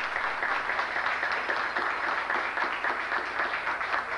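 Audience applauding: many hands clapping at once, a dense steady patter.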